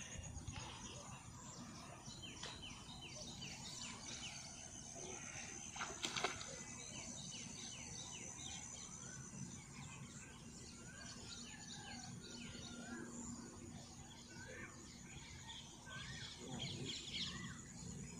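Small birds chirping, a rapid run of short high chirps, with a few rising and falling whistled calls joining from about halfway through. A single sharp click about six seconds in.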